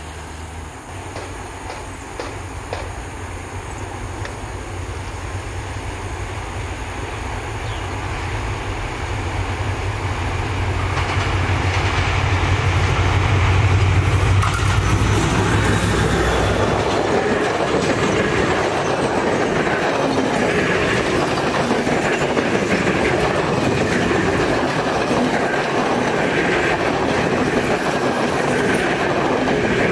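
Class M11 (WDG4D) diesel-electric locomotive approaching and passing, its low engine drone growing louder to a peak about halfway through. Then the passenger coaches roll by with steady wheel-and-rail noise and clickety-clack.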